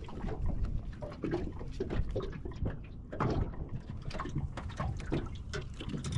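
Water splashing and dripping in small, irregular splashes, over a steady low rumble of wind on the microphone.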